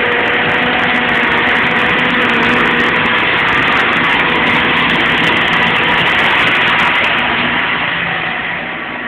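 Tractor engine running steadily while pulling a disc plough through a field, growing quieter near the end.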